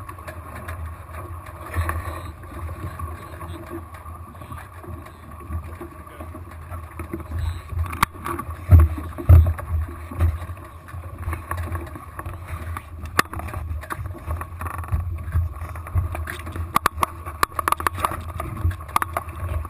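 Water rushing and slapping along the hulls of a small twin-hulled sailboat under sail: a steady low rumble with a faint hum above it. Irregular splashes and sharp knocks come and go, loudest around eight to ten seconds in, with a run of quick knocks near the end.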